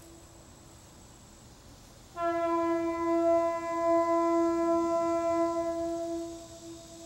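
A train sounds one long, steady single-note blast of its whistle or horn, starting about two seconds in and lasting about four seconds.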